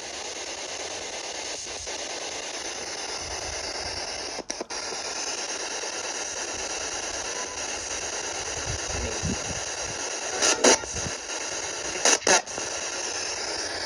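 Steady static hiss, with a brief dropout early and two short, louder crackles about a second and a half apart near the end.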